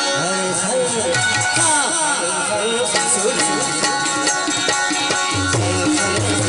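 Folk-style song music with drums and a wavering melodic line.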